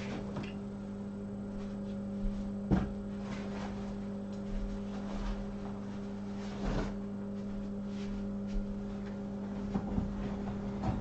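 Steady electrical hum from bench equipment, with a few light, scattered taps and scrapes of a small hand tool working on a phone's flex cable.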